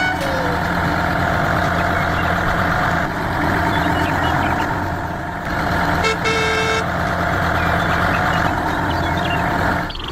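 A vehicle engine running steadily, with a short horn toot about six seconds in.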